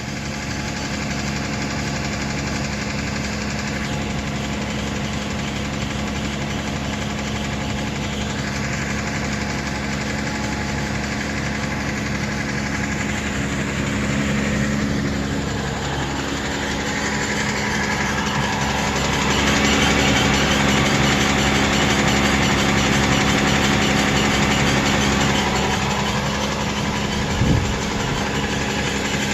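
Toyota Tacoma engine idling cold, with the squeaky noise and knock/rattle that the owner hears only on a cold start and that fade once the engine reaches operating temperature. The sound shifts a few times along the way, and a brief thump comes near the end.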